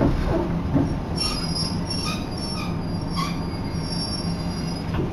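Local train's wheels and brakes squealing as it slows into a station. Several high squeal tones come in about a second in and waver until near the end, over the train's steady running hum. A couple of knocks come at the start.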